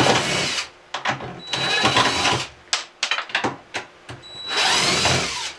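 DeWalt cordless driver running in three short bursts, driving screws out of the plywood cabinet to take it apart. There are clicks between the bursts, and the last burst is the longest, about a second.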